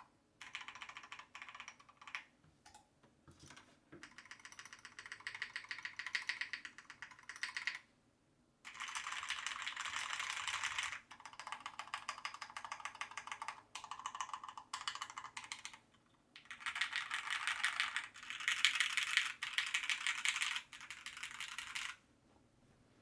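Typing on a Tofu 60 mechanical keyboard with Gateron milky yellow linear switches, lubed with 205g0 and filmed, on an aluminium plate over case foam. The keystrokes come in bursts of fast, dense clicks with short pauses between. The heaviest runs are about nine seconds in and again from about sixteen to twenty-two seconds in, and the typing stops near the end.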